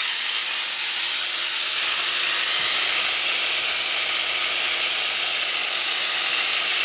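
4.5-inch angle grinder with a thin cutoff wheel cutting through sheet steel, a steady, high hiss with the motor running on underneath.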